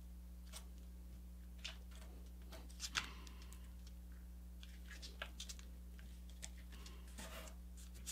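Square sheet of paper being folded and creased by hand: scattered soft rustles and crinkles, the loudest about three seconds in, over a faint steady hum.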